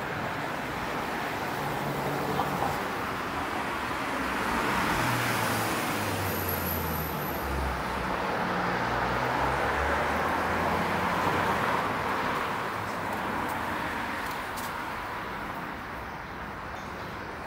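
Road traffic on a city street: cars driving past, engine and tyre noise swelling through the middle and easing off near the end.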